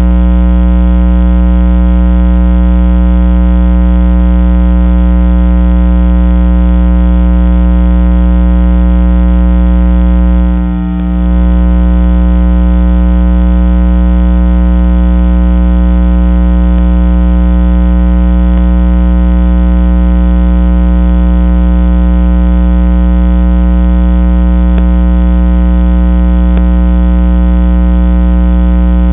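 Loud, unchanging electronic hum with many overtones, dipping briefly about eleven seconds in.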